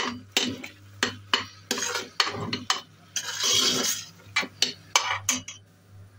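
Metal spoon stirring sugar into thick cooked rice in a stainless steel pot, knocking and scraping against the pot's side one to two times a second, with a longer rasp about three seconds in.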